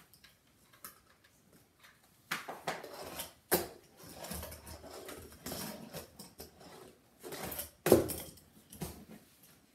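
Fingerboard rolling and rattling over cardboard ramps, with sharp clacks as the little deck and its trucks strike the ramps and table. The first clack comes about three and a half seconds in and the loudest about eight seconds in.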